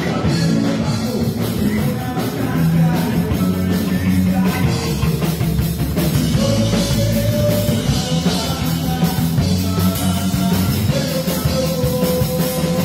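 A live rock band playing loud, with electric guitar, electric bass and a drum kit. Long held notes ring out over the band about halfway through and again near the end.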